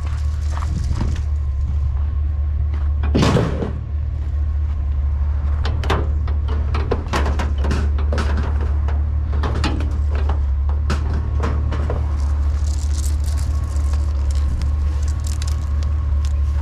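Scattered knocks, clicks and clatter of junk being shifted around inside a dumpster, with one louder crash about three seconds in, over a steady low hum.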